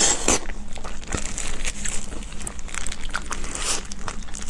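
Close-miked eating of a pig's trotter: irregular biting, tearing and chewing of the skin and meat, with crinkly, crackling noises.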